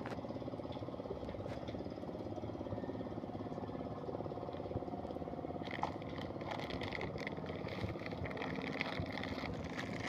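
A vehicle engine idling steadily, with fainter higher sounds joining in about halfway through.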